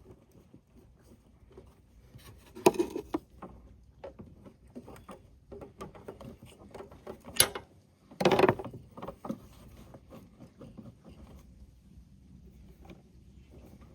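Scattered clicks and knocks of hand work on a stripped-down ATV, with a louder clatter about three seconds in, a sharp click a little after seven seconds, and a short rattle of parts about eight seconds in.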